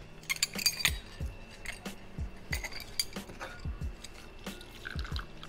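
Fresh lime halves squeezed in a metal hand-press citrus squeezer over a steel jigger: clinks of metal and juice dripping into the jigger. Background music with a steady beat runs underneath.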